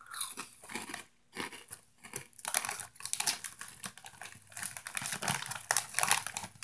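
Lemon Hot Cheetos being chewed close to the microphone: an irregular run of crisp crunches.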